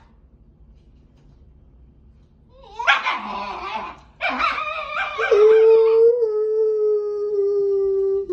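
Dog vocalizing: two short, rough yowls about three and four seconds in, then a long, steady howl that slowly falls in pitch.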